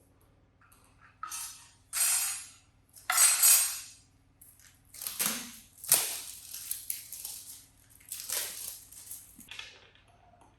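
Repeated scraping and rustling as the parts of a flat-pack dining table are handled during assembly, in about six separate bursts; the loudest come about two and three and a half seconds in.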